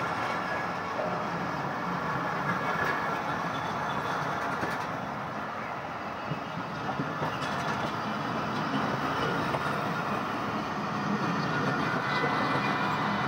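Passenger train coaches rolling past on the adjacent track, a steady rumble of wheels on rail.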